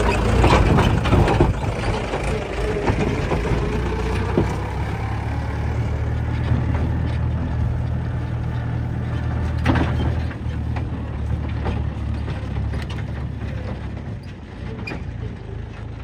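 Heavy diesel engine of working earth-moving machinery running steadily. Sharp knocks and clanks sound over it: a cluster in the first second or so, then single ones about four and about ten seconds in.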